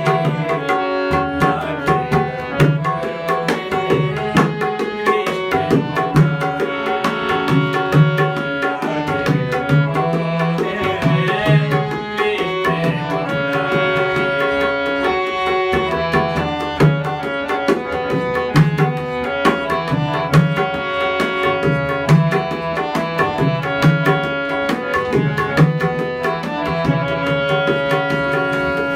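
Instrumental interlude of a Hindi bhajan: a hand drum keeps a steady rhythm under a held, sustained melody line, with no singing.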